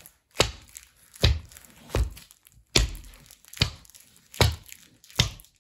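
Tap steps from black sneakers with tape-covered toes and heels, the toe tapping down on a board laid over carpet: seven evenly spaced taps, a little over one a second.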